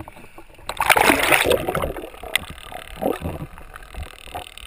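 Sea water splashing and gurgling around a camera held at the surface, with a loud rush of bubbling about a second in as the camera goes under, then muffled underwater sloshing.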